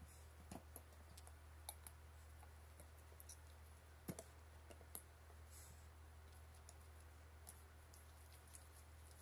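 Faint, scattered clicks of a boxer dog's teeth chomping on a rubber Kong Widget chew toy, a handful in the first half and fewer after, over a steady low hum.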